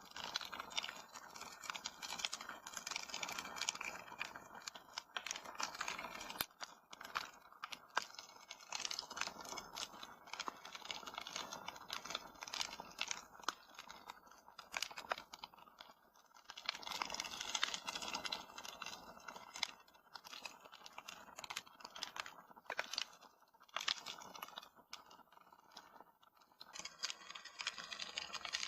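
Wood fire in a fireplace crackling, with frequent irregular sharp pops and snaps over a steady hiss.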